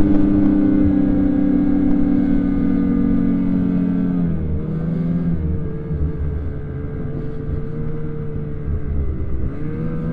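Snowmobile engine running hard at steady high revs. About four seconds in it eases off to a lower pitch, then picks up slightly near the end.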